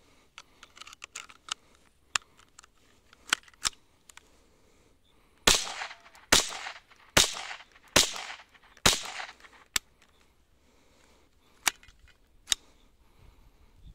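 A Marlin Model 70 semi-automatic .22 rifle fires five quick shots, a little under a second apart, each with a short echo. A few lighter clicks come before and after the shots.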